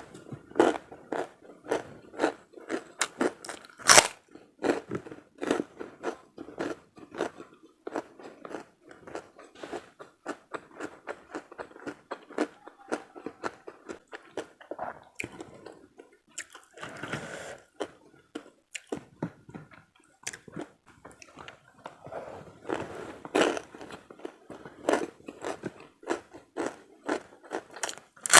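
Close-miked chewing and crunching of karedok, a raw vegetable salad in peanut sauce, eaten with rice and krupuk crackers: a steady run of crisp bites and chews, with one sharp, loud crunch about four seconds in.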